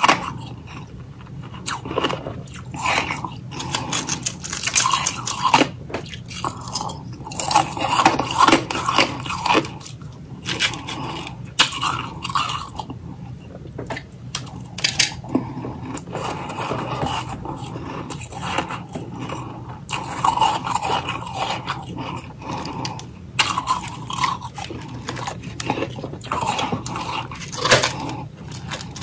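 A person biting and chewing freezer frost: a run of irregular crunches, some sharp and clicky, with short pauses between mouthfuls.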